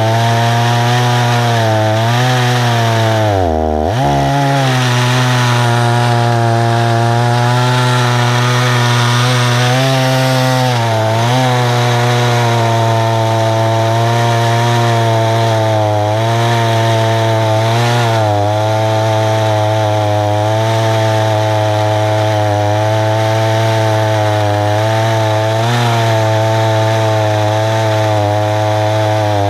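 Husqvarna 288 two-stroke chainsaw running flat out under load, ripping a tulip poplar cant lengthwise in an Alaskan chainsaw mill. Its engine note drops sharply and recovers about four seconds in, with smaller wavers later as the cut loads it.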